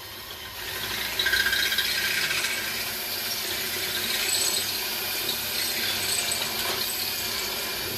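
Power drill with a 1/4-inch bit boring into a pot-metal rivet, the bit cutting steadily through the metal and getting louder about a second in as it bites. It is drilling the head off the rivet.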